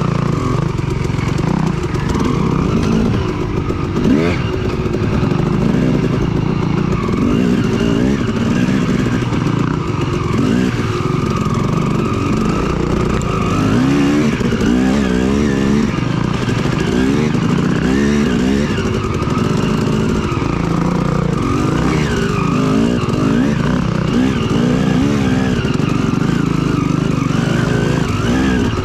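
Yamaha WR450F dirt bike's single-cylinder four-stroke engine running on a trail ride, its pitch rising and falling again and again as the throttle is opened and shut.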